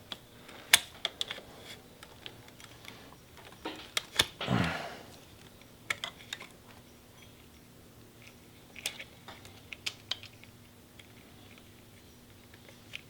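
Scattered sharp clicks and taps of plastic and metal parts being handled as the throttle cable distribution box is worked loose by hand. A loud cluster of clicks about four seconds in is followed by a brief sound falling in pitch. A faint steady hum runs underneath.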